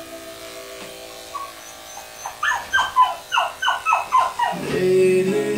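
A dog whining in a quick series of about eight short yelps, each falling in pitch, over background music that grows louder near the end.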